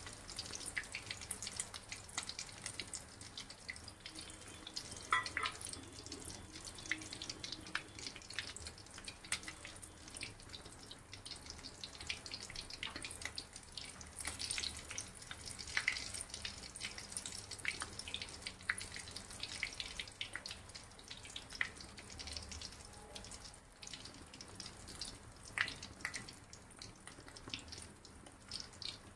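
Bread rolls deep-frying in hot ghee in a kadhai: steady sizzling with many irregular sharp crackles and pops.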